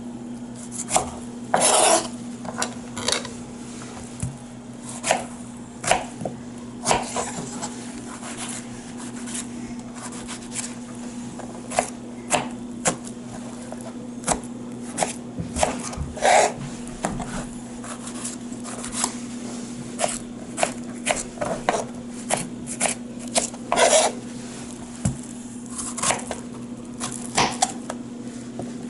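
Small kitchen knife chopping strawberries on a plastic cutting board: the blade knocks and taps on the board in irregular strokes.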